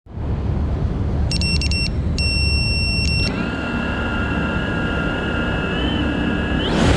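A 5-inch FPV quadcopter being armed on the ground: a quick run of electronic beeps from its ESCs and motors, then one longer beep, then its brushless motors whining steadily at idle, rising sharply in pitch near the end as the throttle comes up for takeoff. A low rumble runs underneath.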